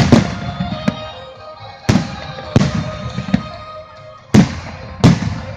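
Fireworks shells bursting overhead in a string of loud bangs, roughly one every second or so, each with a crackling fade, over music with long held notes.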